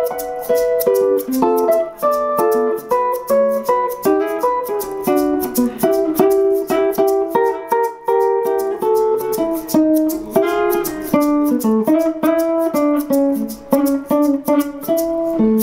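Archtop jazz guitar playing an instrumental solo of quick single notes and chords, with a hand shaker keeping a steady rhythm behind it.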